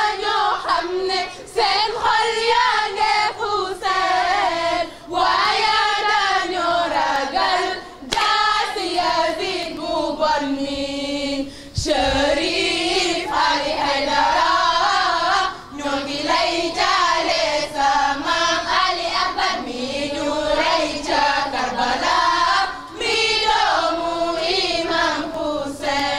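Group of voices, women and children among them, chanting a latmiya mourning lament in chorus, with short pauses between phrases, over rhythmic hand strikes of chest-beating.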